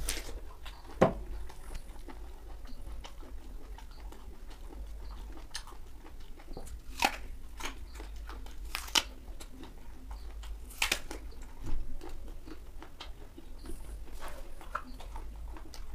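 Raw apple being bitten and chewed close to the microphone: a few sharp crunching bites spaced a few seconds apart, with quieter chewing between them over a low steady hum.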